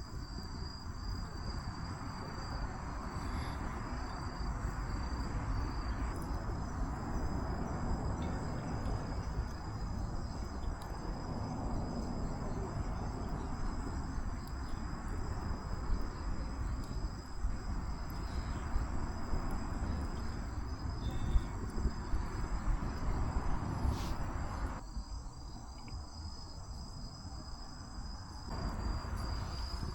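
Crickets trilling steadily in one constant high tone, over the low crackle and hiss of a campfire, with a single sharp pop about three-quarters of the way through.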